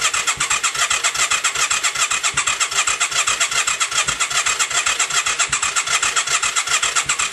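Yamaha XV535 V-twin engine being turned over by its electric starter in a steady, fast rhythm without catching: a no-start with a charged battery, after a starter clutch replacement.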